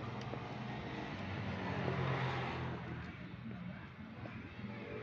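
A motor vehicle passing on the road outside, its noise swelling about two seconds in and then fading over a steady low engine hum. Faint clicks come from the cat crunching dry kibble.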